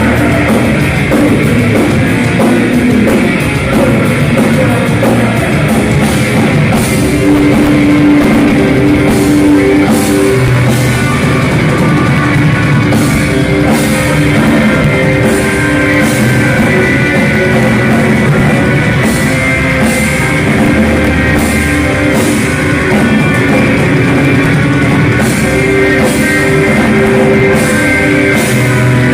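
Heavy metal band playing live, with distorted electric guitars and bass over a drum kit and cymbal crashes struck again and again.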